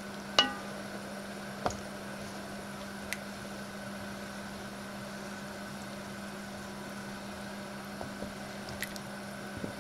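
Wooden spatula stirring and scraping a thin curry sauce in an enamelled cast-iron pot: soft liquid squishing with a few brief knocks against the pot, over a steady low hum.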